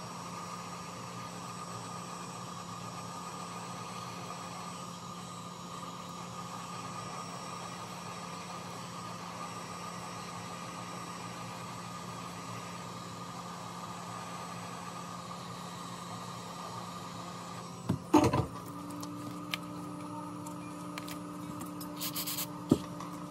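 Hot air rework gun blowing steadily, a fan hiss over a constant low hum, heating the phone's back glass to soften its adhesive. About 18 seconds in there is a short loud clatter and the steady tone shifts, followed by a few light clicks and taps near the end.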